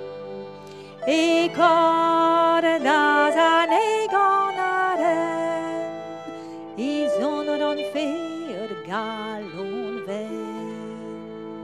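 A woman sings a slow song in Breton with vibrato, accompanied by a harp. She sings two phrases, with a short pause between them near the middle.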